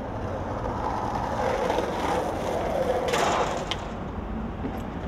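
Skateboard wheels rolling over concrete, growing louder and peaking about three seconds in, then a sharp clack of the board a moment later.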